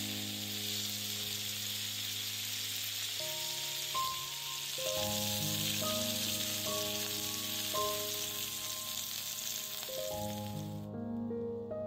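Ground-meat Adana kebabs on wooden skewers sizzling in hot oil in a griddle pan, a steady hiss that cuts off suddenly about a second before the end. Soft background music with held notes plays throughout.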